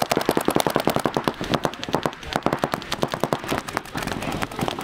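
Paintball markers firing rapid strings of shots, about ten sharp pops a second, in an irregular, overlapping stream.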